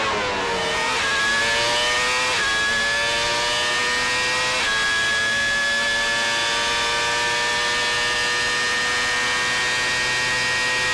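McLaren-Mercedes Formula One car's V10 engine heard onboard at full throttle. It changes up three times in the first five seconds, the pitch dropping at each shift, then holds a long, high note that slowly climbs.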